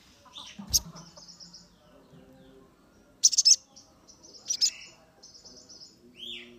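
Caged sunbird (sogon) calling: scattered high, sharp chirps and quick twittering trills, loudest in two short bursts in the middle, with a single sharp click just under a second in.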